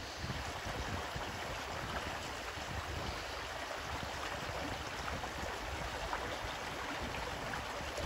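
Shallow creek running over rocks between snow and ice banks: a steady trickling rush of water, with a low, uneven rumble underneath.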